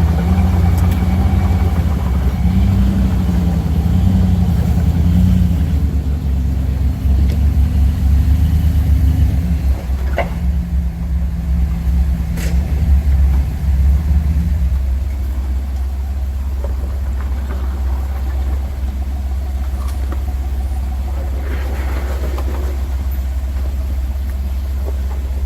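Vehicle engine running under load with a wavering pitch, then settling into steadier, slightly quieter running about fifteen seconds in. A couple of sharp knocks come in the middle.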